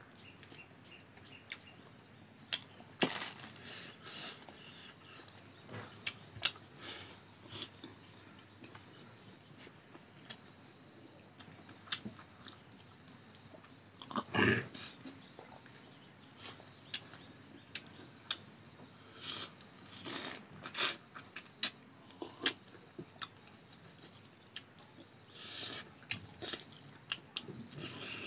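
Close-up eating sounds: scattered wet lip smacks and chewing clicks as fried fish is eaten by hand, with one louder sip from a glass of Coca-Cola about halfway through. A steady high insect drone sounds underneath.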